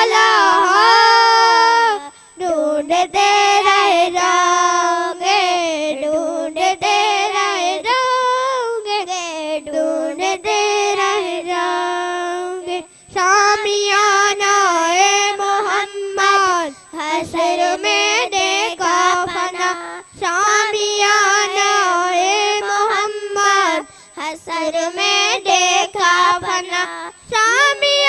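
A young girl singing a naat, an Islamic devotional song in praise of the Prophet, with no instruments. She sings long, ornamented phrases with short breaks for breath between them.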